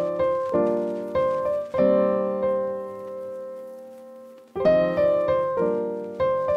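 Background piano music: chords struck and left to ring and fade, one held for about three seconds in the middle.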